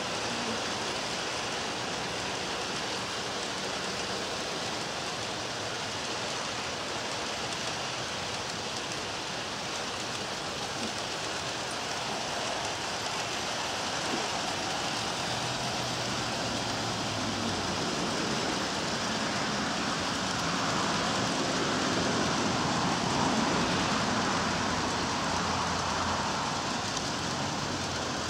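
G-scale model freight train rolling along its track: a steady rumble of the cars' wheels on the rails that grows a little louder in the second half.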